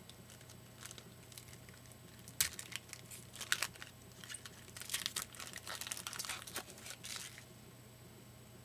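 A football trading-card pack's wrapper being torn open and crinkled by hand. There is a sharp rip about two and a half seconds in, then irregular crinkling on and off for a few seconds.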